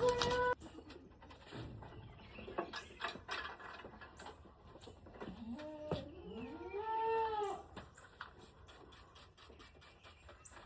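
A drawn-out animal call about six seconds in, rising and then falling in pitch, among faint scattered clicks.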